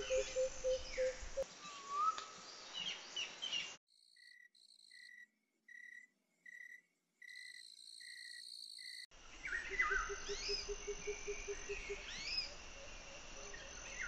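Birds chirping and whistling over a rapid, even pulsing trill. For about five seconds in the middle this stops and a clear, high chirp repeats evenly about every two-thirds of a second, then the birdsong and trill return.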